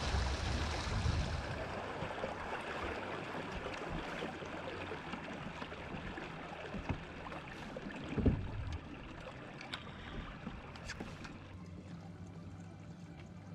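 Water and wind noise around a small boat on open water, fading out over the first ten seconds, with a single knock about eight seconds in. A low steady hum comes in near the end.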